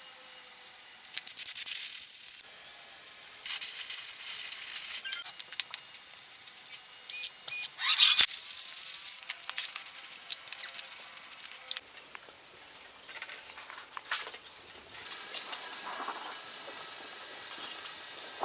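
Several bursts of hissing spray, each one to two seconds long, with small clicks and knocks in between.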